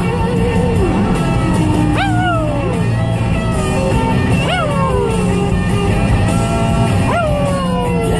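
Maltese dog howling along to country music on a car radio: three howls, each jumping up quickly and then sliding slowly down in pitch, about every two and a half seconds, over the song's guitar and vocals.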